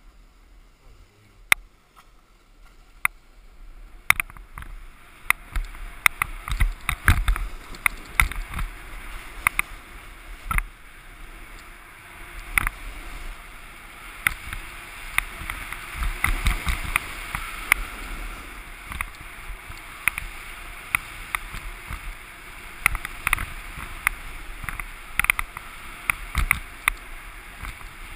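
Snowboard sliding over groomed, chopped-up snow: a steady scraping hiss, with frequent sharp clicks and knocks as the board chatters over the ridges. It starts up about four seconds in.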